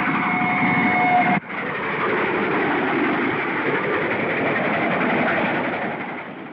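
Passenger train running at speed, a steady rushing rumble. A high held tone rides over it for about the first second and a half and stops at a brief break in the sound. The train noise then carries on evenly and fades near the end.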